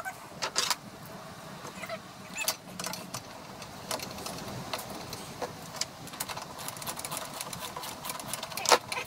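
Metal clinks, clicks and knocks of hand tools and spreader parts being handled and fitted during assembly, with a run of quick clicks late on and a sharper knock just before the end.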